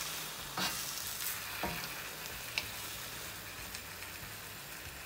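Broccoli, courgette and spinach sizzling in oil in a wok as a wooden spoon stirs them. The steady hiss is broken a few times by short knocks of the spoon against the pan.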